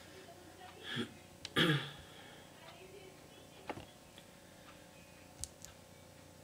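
A man makes a short throat-clearing sound in the first two seconds. It is followed by a few faint, sharp computer clicks, spaced apart, as presentation slides are advanced.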